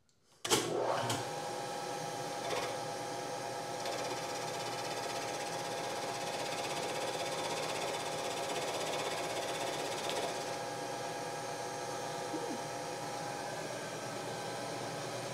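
Bridgeport-type knee mill running steadily with its spindle turning a boring head, an even mechanical hum with a constant tone that starts suddenly just under half a second in. It is taking a boring pass to open a stripped core-plug hole in an LS3 cast-iron block out to tap-drill size.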